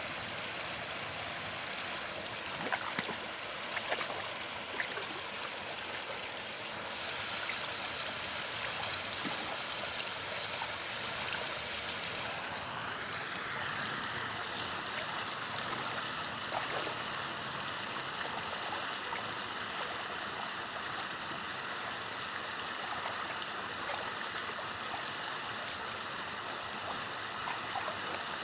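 Steady rush of flowing canal water, with a few brief splashes about three to four seconds in.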